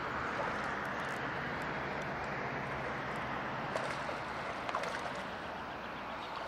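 A hooked largemouth bass splashing briefly at the water's surface about four seconds in, over a steady rushing background noise.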